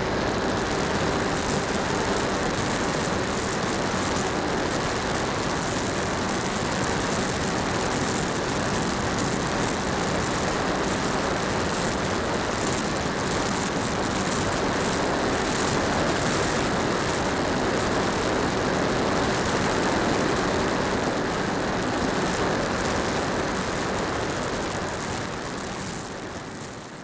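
Electric motor and propeller of an HK Skipper RC seaplane running steadily, heard through the plane's own onboard keyfob camera with heavy wind rush. The sound fades out over the last few seconds.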